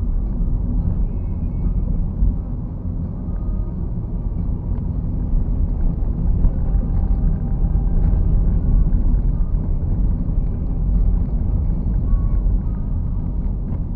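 Steady low rumble of a car's engine and tyres on the road, heard from inside the cabin.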